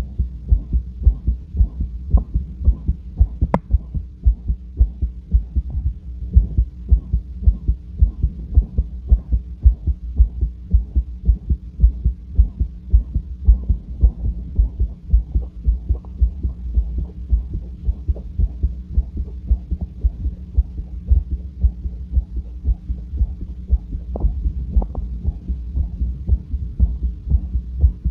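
A person's heart heard through auscultation, beating calmly and regularly at rest, with a very loud, harsh whooshing heart murmur that is always present.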